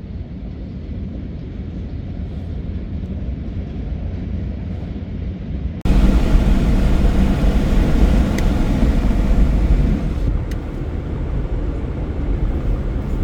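Road and engine noise of a car being driven, a steady low rumble that jumps suddenly louder about six seconds in.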